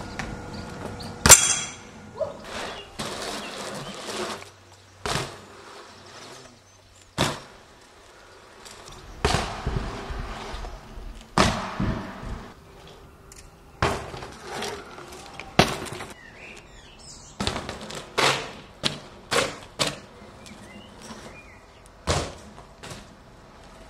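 BMX bikes hitting concrete on street riding: many sharp thuds and clacks from landings and impacts, spaced irregularly, over low background noise.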